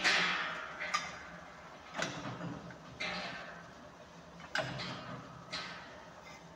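Metal clanks at the hub of a large stone-cutting circular saw that is standing still, about six strikes roughly a second apart, each ringing briefly as it fades. The first strike is the loudest.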